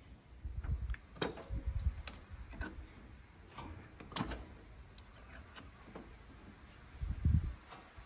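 Spark plug wires being pulled off one distributor cap and pushed onto the new Pertronix distributor cap: scattered sharp clicks and snaps of the plug boots and cap, with a few dull bumps of handling.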